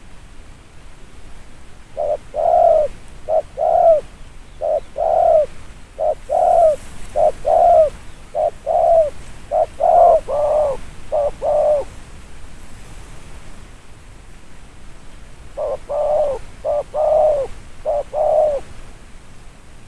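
Spotted dove cooing: rapid runs of short, low coos, a gap of a few seconds past the middle, then another run.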